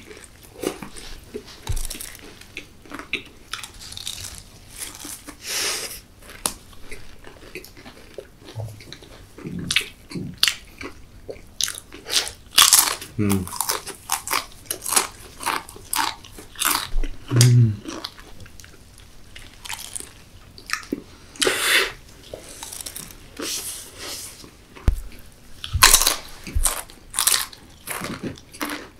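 Close-up chewing and biting of KFC Doritos chicken burgers: irregular crisp crunches of the tortilla chips in the burgers, with chewing between them.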